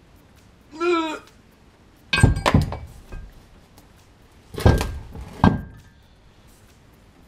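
Heavy steel Subaru EJ20 crankshaft clunking down onto the workbench and engine parts: a cluster of loud knocks about two seconds in, then two more sharp knocks with a brief metallic ring a little under a second apart. A short grunt of effort about a second in.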